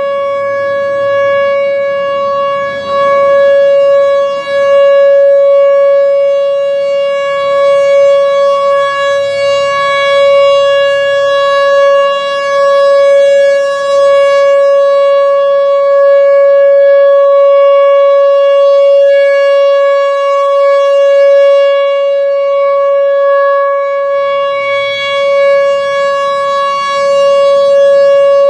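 Whelen Vortex R4 electronic outdoor warning siren sounding a steady alert tone for a test. It holds one high pitch without rising or falling, while its loudness swells and fades every few seconds.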